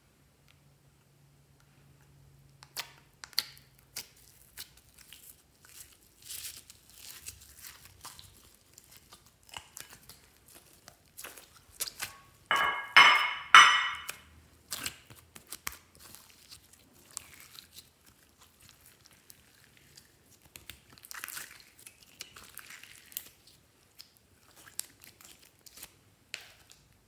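Glitter slime being pulled apart and squeezed by hand: sticky tearing and crackling, with a loud run of crackles about halfway through.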